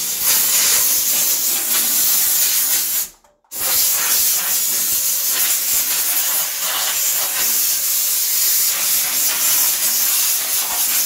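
Kärcher steam cleaner blowing steam through its strongest, narrow point nozzle: a loud, steady hiss that stops for a moment about three seconds in and then starts again.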